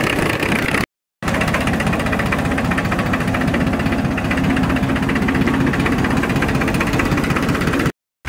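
Escorts 435 tractor's diesel engine running steadily under load, with an even, rapid firing beat. The sound drops out completely for a moment about a second in and again just before the end.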